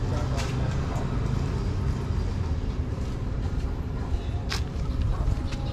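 Steady low rumble of outdoor background noise, with a single sharp click about four and a half seconds in.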